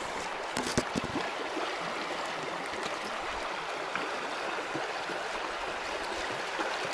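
Steady rush of a fast-flowing river over stones, with a few light knocks about a second in.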